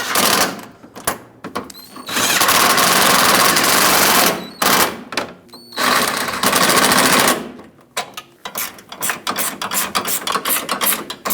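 A power tool driving in the hood latch's 10mm bolts in two runs of a couple of seconds each. Between and after the runs come quick, rapid clicks of the tool on the bolts.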